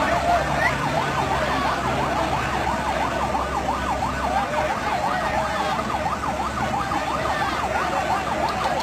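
Emergency vehicle siren in a fast yelp, its pitch sweeping up and down about three times a second without a break, over the hubbub of a large crowd.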